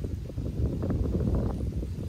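Wind buffeting the microphone: a steady low rumble with quick gusty flutters.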